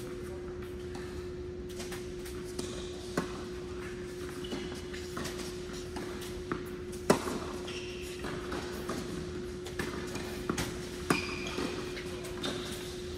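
Tennis ball struck by racquets and bouncing on an indoor hard court: single sharp pops, the loudest about seven seconds in, then a quicker run of hits and bounces in a rally near the end, over a steady hum in the hall.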